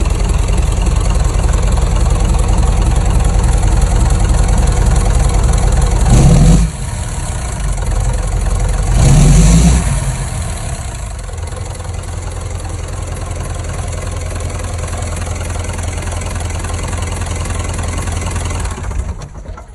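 Engine running on an open test stand, idling, then revved twice, about six and nine seconds in, each time rising in pitch and falling back. It idles more quietly afterwards until the sound stops near the end.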